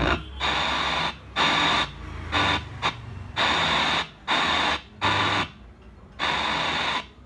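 Speaker driven by a 4440 IC amplifier, playing short bursts of noisy, radio-like sound from its built-in FM/MP3 module. The sound cuts off and comes back about eight times as the module's buttons are pressed, as in a test run after new volume controls were fitted.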